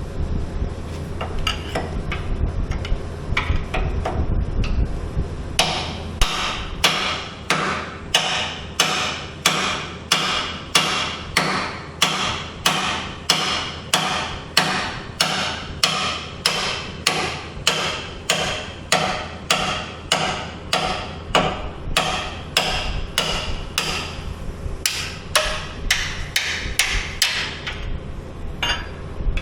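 Hand hammer striking metal during axle bushing replacement on a Skyjack SJIII 3219 scissor lift: a few light taps, then steady heavy blows at about two a second for over twenty seconds, stopping just before the end.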